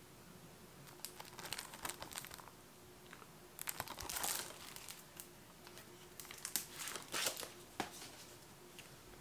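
Plastic shrink wrap on Blu-ray cases crinkling as the cases are handled, in several short rustling bursts with quiet gaps between them.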